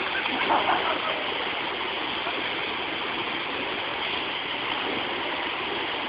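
Waterfall pouring into a swimming pool: a steady, even rush of falling water.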